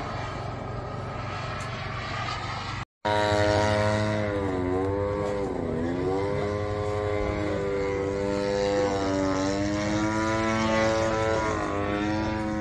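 Giant-scale radio-controlled model airplane's propeller engine running in flight, its pitch sagging and climbing again several times. The sound cuts out for a split second about three seconds in.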